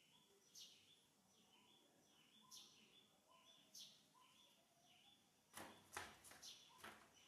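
Faint bird chirps, short falling calls about every second. About five and a half seconds in comes a quick cluster of rustling knocks, the loudest sound here.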